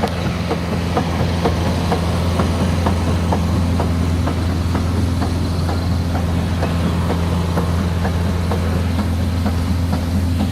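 Concrete truck's engine running steadily with a low hum, with a light regular ticking about two to three times a second.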